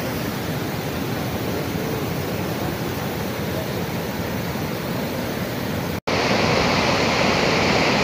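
Turbulent floodwater rushing steadily. After a sudden break about six seconds in, the rush is louder and hissier: water pouring over the overflowing lake's weir.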